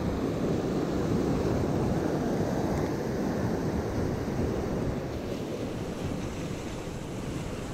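Sea surf breaking and washing over a rocky, seaweed-covered shore: a steady rushing wash, with wind rumbling on the microphone.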